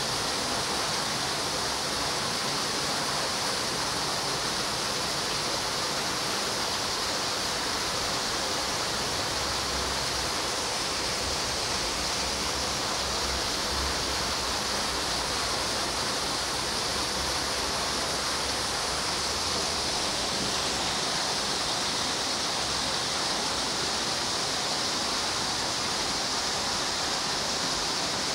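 Steady rushing noise, unchanging throughout, with most of its energy in a high hiss.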